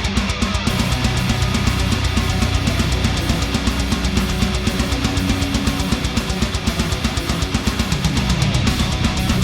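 Heavy rock music with distorted electric guitar and a drum kit, loud and driving, with a steady beat.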